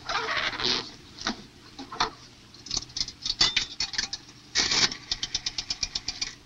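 Rotary-dial pay telephone being dialled: a short rasp as the dial is wound round, then a quick, even run of about ten clicks a second as it spins back. Before that, a burst of rustling and a few scattered knocks and clicks as the booth is entered and the phone handled.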